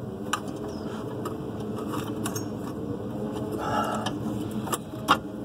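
A few light clicks and a brief scrape as a steel brake line is handled and bent into place by hand, over a steady low background hum.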